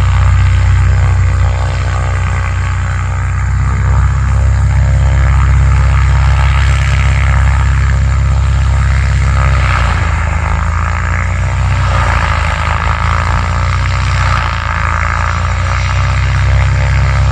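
Cessna 525A CitationJet CJ2 business jet's twin Williams FJ44 turbofan engines running loudly and steadily, with a deep rumble under a whining tone. About ten seconds in the tone sweeps down and back up for a couple of seconds as the jet passes.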